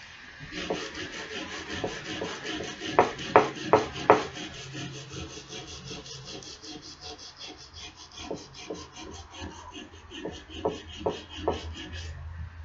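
Sandpaper scraped by hand back and forth over a rusty steel axe head in quick, even strokes, several a second, scrubbing the rust off. A few louder knocks come about three to four seconds in and again near the end.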